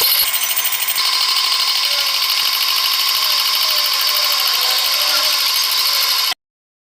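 Manual metal lathe turning a plate part with a carbide insert tool, giving a steady high-pitched whine of the cut over the machine's running. It stops abruptly near the end.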